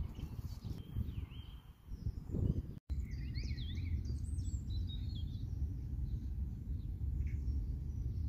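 Outdoor ambience: a steady low rumble of wind on the microphone, with small birds chirping and twittering over it. The sound drops out for an instant about three seconds in; the bird calls are busiest just after.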